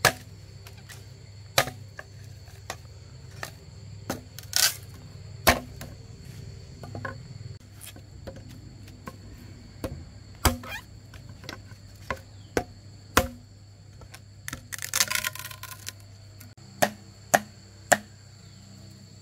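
Sharp chopping strikes at irregular intervals, roughly one every one to three seconds, with a brief rustling burst about fifteen seconds in.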